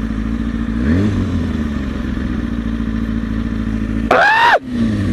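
Motorcycle engine idling at a standstill, with a short blip of the throttle about a second in. Near the end a loud, brief, high-pitched shout rises and falls over the engine.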